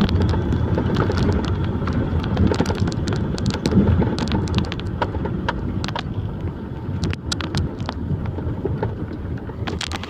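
Logging truck's engine running steadily with a low rumble, with scattered sharp clicks and knocks over it.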